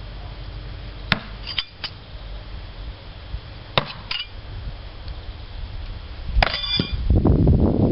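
Throwing knives hitting a wooden board target three times, about two and a half seconds apart, each a sharp clack; the third hit rings briefly like metal striking metal. A loud low rumble follows near the end.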